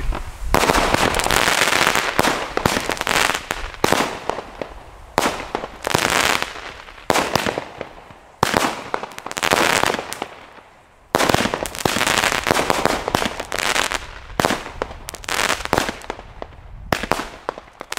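Consumer firework battery, a Sky Paint "Butterfly" cake, firing shot after shot: sharp launch thumps and bursts, several of them trailed by about a second of hiss.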